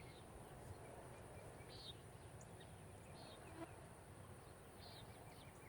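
Near silence: quiet outdoor ambience with a faint, short, high chirp three times, about a second and a half apart, over a steady thin hiss.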